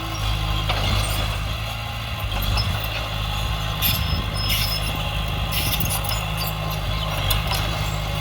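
Heavy diesel earthmoving machinery running steadily under a low drone, with short metallic clinks and rattles at intervals.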